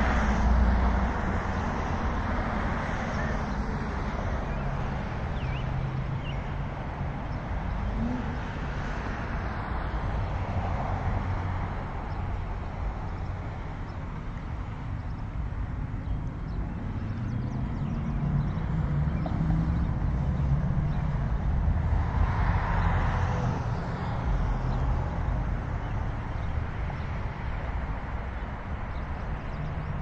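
Steady outdoor street noise with a low traffic rumble, swelling as vehicles pass about ten seconds in and again past the twenty-second mark.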